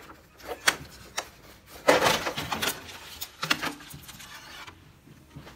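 Plastic front casing of a wall-mounted air conditioner's indoor unit being pushed up and slid off its snap-fit clips: several sharp plastic clicks, with a scraping rub about two seconds in and more clicks a little later.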